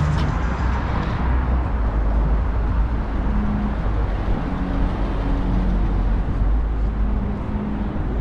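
Steady road traffic on a busy multi-lane street: cars and trucks running past, with a constant low rumble and faint engine hum.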